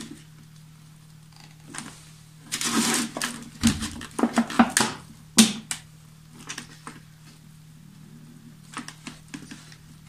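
Handling noise from a large plastic water bottle: a run of crackles and sharp clicks a few seconds in, with a few fainter ticks later, over a steady low hum.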